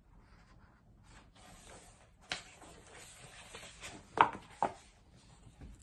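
Handling noise from a hardcover picture book: soft paper rustling and a click, then two sharp knocks close together about four seconds in.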